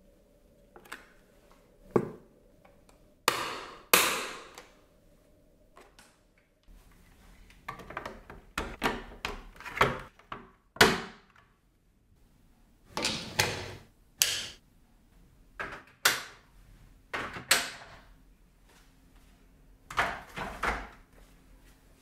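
Hard plastic parts of a Dyson cordless-vacuum docking station being pushed, clipped and snapped together, giving a long series of sharp clicks and knocks, some single and some in quick clusters.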